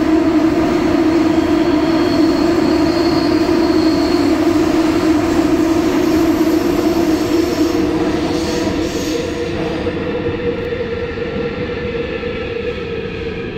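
Busan Metro 2000-series electric train running at speed through a tunnel, heard from inside the car: a loud, steady rumble and hum of wheels and motors. From about eight seconds in it grows quieter as the train slows for the next station, and the gliding tones of its IGBT VVVF inverter come through near the end.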